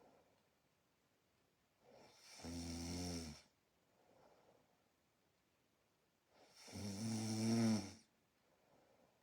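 A person asleep, snoring: two loud snores about four and a half seconds apart, the first about two seconds in and the second, louder one about six and a half seconds in, with soft breathing between.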